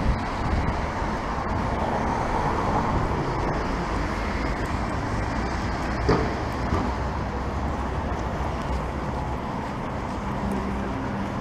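Longboard wheels rolling over rough asphalt, a steady rumble, with one sharp knock about six seconds in.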